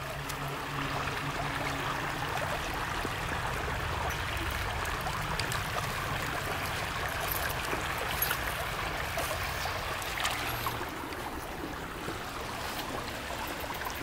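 Shallow creek water running steadily over rock ledges.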